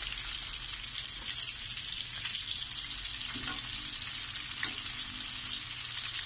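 Battered cream dory fillets deep-frying in a wok of hot oil: a steady sizzle with small pops and crackles.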